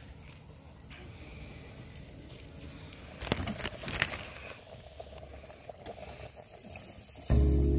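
Faint steady hiss with a few light crackles from hot oil in a cast-iron skillet over a campfire. Music comes in near the end.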